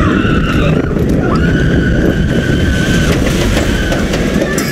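Vekoma suspended looping coaster train rolling on its track, heard from onboard: a heavy rumble with wind, and a high squeal that rises slightly, then holds steady for about two seconds. The sound cuts off suddenly at the end.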